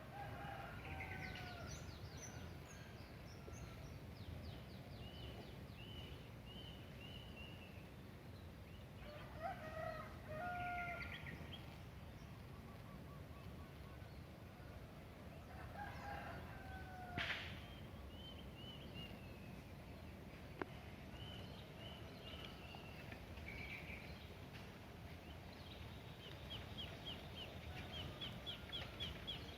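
Small animals calling: clusters of short calls that bend in pitch, and runs of quick high chirps that get faster near the end. A single sharp click sounds a little past halfway.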